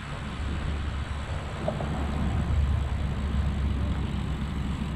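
Wind noise on the microphone of a camera riding on a moving bicycle: a steady low rumble with a hiss of air and road noise.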